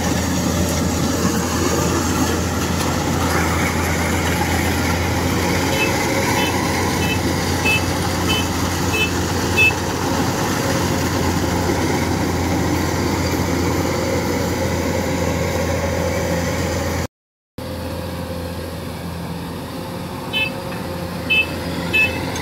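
Kubota DC-105X rice combine harvesters' diesel engines running steadily under load while cutting and threshing rice. Two runs of short high electronic beeps, about two a second, sound over the engines, the first about six seconds in and the second near the end; the sound drops out briefly about seventeen seconds in.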